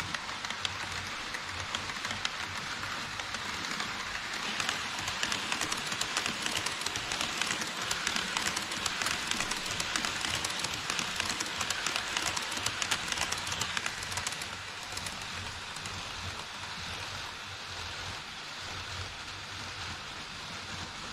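HO scale model trains running over KATO Unitrack and a model truss bridge: a steady, rapid clicking and rattling of small wheels on the rails and track joints. It is busiest in the middle and eases off about two-thirds of the way through as the trains pass.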